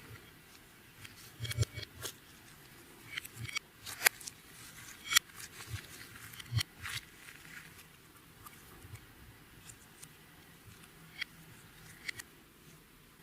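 Clear slime being worked by hand, giving irregular small clicks and pops, with a couple of sharper ones around the middle.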